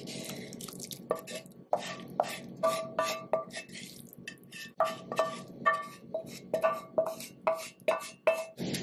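Wooden spatula scraping and knocking sauteed onions and garlic out of a skillet into a slow cooker of liquid. It makes a quick, irregular run of knocks, about two or three a second, many with a brief ringing tone from the pan.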